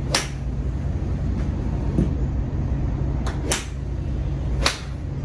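An iron striking a golf ball off a driving-range hitting mat: a sharp click about four and a half seconds in, with a few other sharp clicks earlier, over a steady low rumble.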